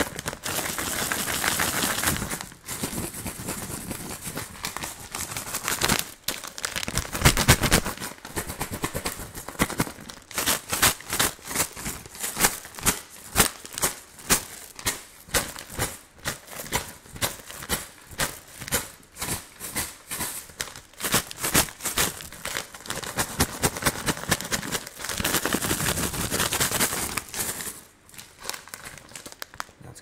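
Plastic bag of candies crinkled and shaken close to the microphone: dense crinkling at the start and again near the end, and in between a long run of quick, even shakes, a few a second.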